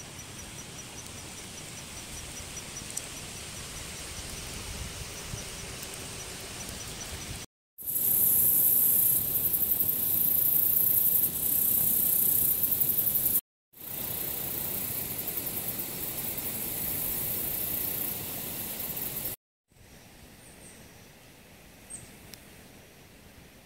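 Outdoor natural sound in several clips joined end to end, with brief dropouts between them. In the middle stretch a loud, high-pitched insect chorus buzzes with a fast pulse. Around it are faint regular high ticks and quieter background ambience.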